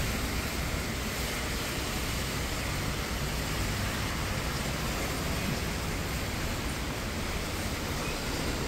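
Steady hiss of a rain-wet city street: light rain falling and traffic on the wet road, with no single sound standing out.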